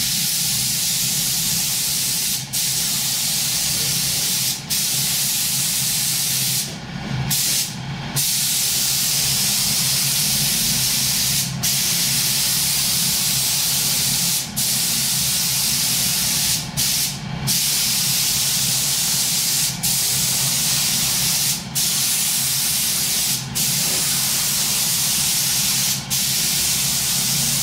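Pneumatic paint spray gun spraying clear coat onto plastic car moldings: a steady loud hiss of air and paint, broken about a dozen times by brief gaps as the trigger is let off between passes. A low hum runs underneath.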